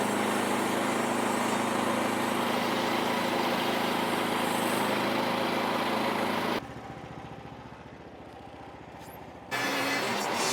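Small engine of a Frontier OS27 portable sawmill running steadily, then dropping away sharply about six and a half seconds in and coming back just as suddenly near the end.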